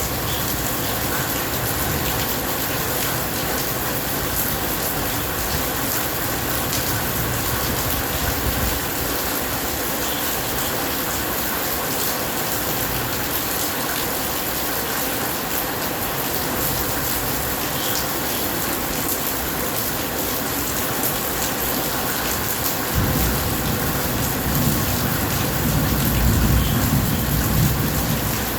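Steady rain falling, an even hiss throughout. A low rumble of thunder sits under it at the start and swells again in the last few seconds.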